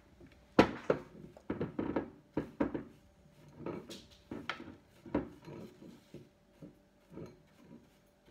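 A small utensil scraping and clinking against a plate and then a bowl as breadcrumbs are swept up and scooped, in irregular taps and scrapes.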